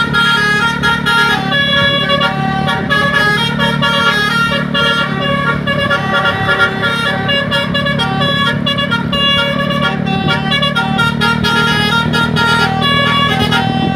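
Bus telolet horn playing a quick multi-note tune, note after note with no break, over the steady running of the bus engine.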